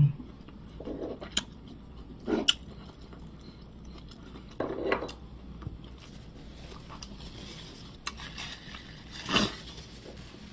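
A person chewing food with the mouth closed, with a few short clicks and clinks of utensils against dishes scattered through, the loudest near the end.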